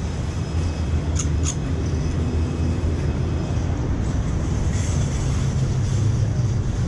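Steady low rumble of street traffic and engines, with two short clicks about a second in.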